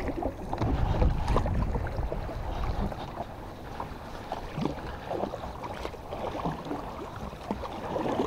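Water lapping against a small boat's hull, with wind rumbling on the microphone for the first few seconds and faint scattered ticks after.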